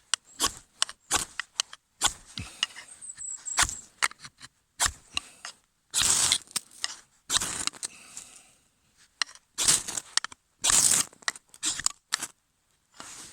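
Repeated sharp scrapes and clicks of striking to light a fire, with several longer scraping strokes in the second half.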